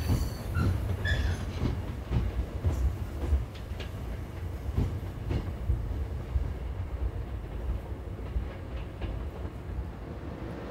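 Hankyu Kyoto Line electric train running through the station throat, wheels clacking irregularly over rail joints over a low rumble that gradually fades.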